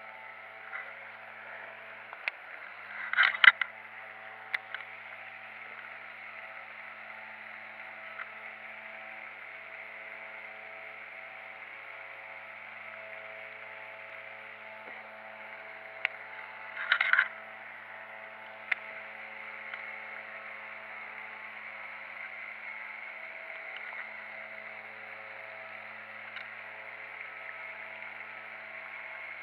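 Baitcasting reel being cranked to retrieve a lure, a steady whir that pauses and resumes, with two short, loud clicking rattles, one about three seconds in and one about halfway through.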